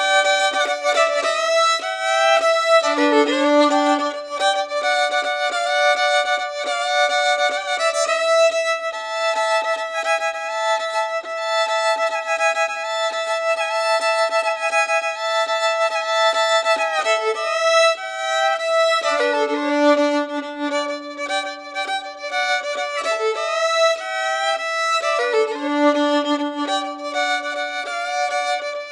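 Violin music: slow, long-held notes, often two or more sounding together, with occasional slides and changes of pitch.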